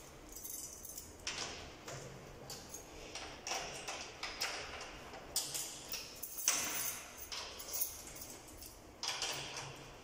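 Drum key turning the tension rods on a PDP drum during tuning: scattered short scrapes and small metallic clicks, with no drum strokes.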